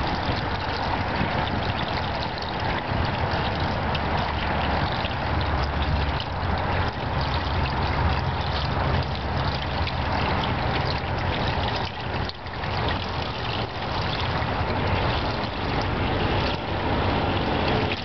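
Steady stream of water poured from a plastic bucket into a steel infiltration ring, splashing into the shallow pool inside. The pour is kept at a constant rate to hold a constant head while the water drains through the paver joints. It eases briefly about two-thirds of the way through.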